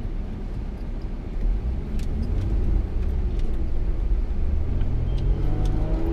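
Off-road vehicle's engine running under way with a steady low rumble, getting louder about a second and a half in and revving up in pitch near the end.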